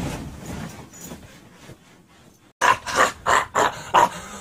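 A man's guttural demonic growl imitating a possessed girl. One long rough growl fades away, then after a brief break comes a quick run of about five short harsh snarls.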